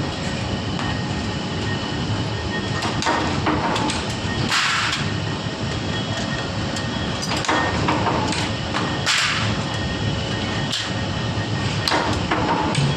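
Steady running noise of factory machinery, with scattered metallic knocks and a short hissing burst about every four and a half seconds.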